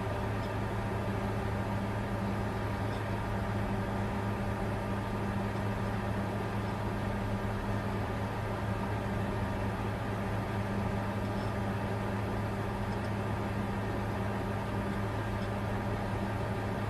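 Bitcoin mining computer running steadily: an unchanging low hum with a few steady higher tones over an even rushing noise.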